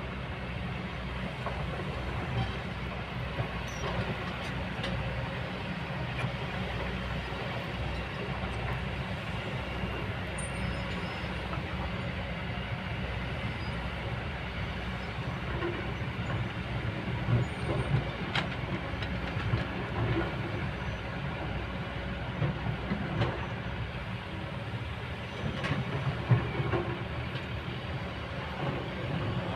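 Kobelco excavator working: its diesel engine runs steadily, with a few sharp knocks and clanks, the loudest about 26 seconds in.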